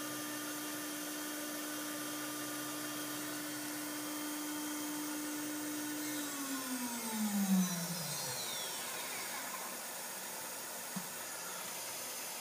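MultiCam 3000 router's 10 HP spindle running steadily at 18,000 RPM, a steady whine. About six seconds in it is switched off and the whine glides down in pitch as the spindle spins down, fading out about two seconds later.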